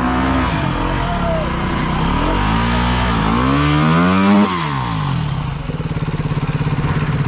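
Enduro motorcycle engine revving up and down under load as the bike is worked over a log. The revs climb to their highest about four seconds in, drop suddenly, then settle to a steady low putter.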